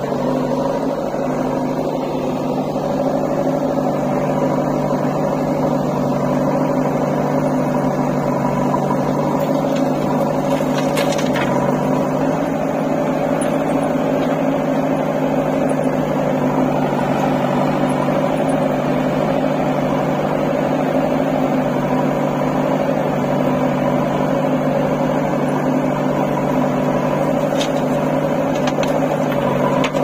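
Diesel engine of a JCB 3DX backhoe loader idling steadily, holding one even pitch with no revving.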